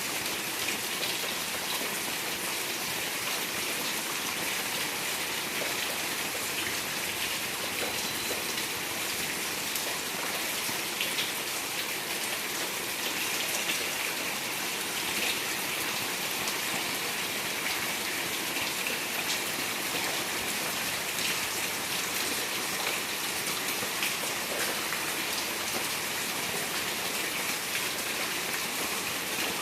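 Steady rain falling: an even hiss of many drops with scattered sharper drop ticks.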